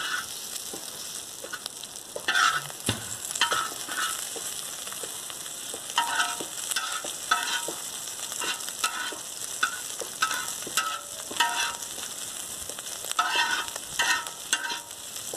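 Meat and sliced onion sizzling steadily in a wide steel frying disc over a campfire. A metal utensil scrapes across the pan again and again as the pieces are stirred; those scrapes are the loudest sounds.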